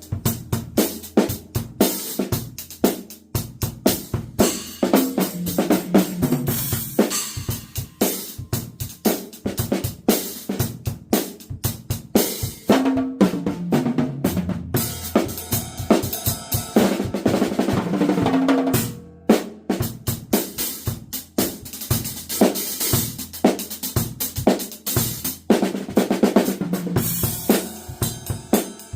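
Drum kit played with the snare drum to the fore, together with kick drum, hi-hat and cymbals, in a busy pattern of fills and grooves. A sustained roll of about two seconds comes a little past the middle.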